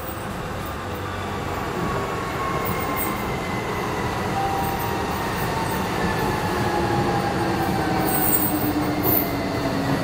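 DLR B07-stock light-rail train heard from inside the carriage, its traction motors whining with a slowly falling pitch over the rumble of the wheels on the rails as the train slows into a station. A short high hiss comes near the end.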